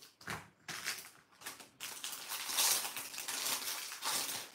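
A few light taps of plastic markers being set down, then a stretch of thin plastic packaging crinkling and crackling as it is handled and opened.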